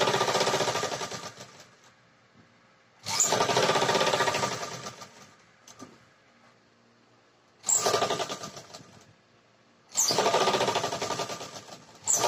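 Black straight-stitch tailoring sewing machine stitching the folded hem of a kurti's side slit, running in five short runs. Each run starts suddenly with a fast, even needle clatter and slows off, with short pauses between runs while the cloth is repositioned.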